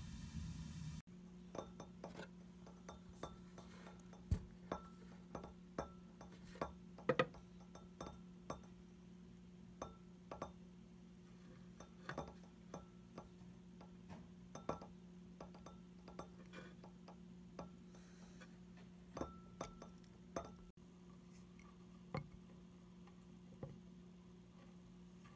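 A thin metal rod clinking against a glass filter funnel in many irregular sharp taps, over a steady low hum.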